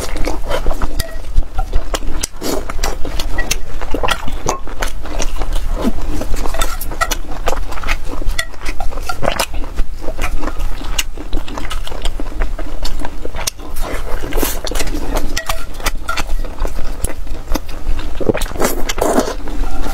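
Close-miked wet chewing and smacking of braised pork. Chopsticks now and then click against the metal pan, and near the end a wide noodle is slurped.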